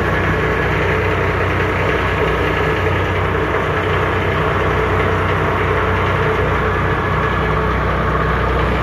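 Fishing boat's engine running steadily with a low, even hum, heard on board.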